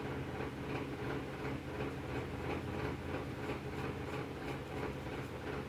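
Graphite pencil shading on paper: quick, faint scratchy strokes repeating about four times a second, over a low steady hum.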